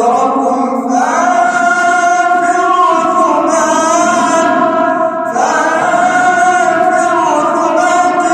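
A man's voice reciting the Quran in the drawn-out melodic tajweed style, holding long notes with ornamented turns of pitch. A new phrase begins with an upward slide about a second in, and another after about five seconds.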